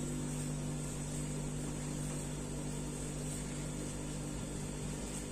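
Steady low machine hum with a faint high hiss.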